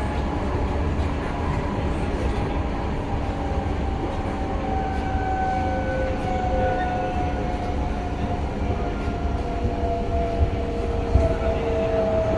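Interior running noise of a C151A MRT train: a steady low rumble from the wheels on the track, with an electric motor whine slowly falling in pitch. Two small knocks come about ten seconds in.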